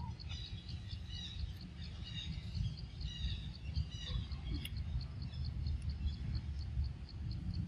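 An insect chirps steadily in short high pulses, about four a second, while birds call in scattered chirps during the first half. A steady low rumble runs underneath.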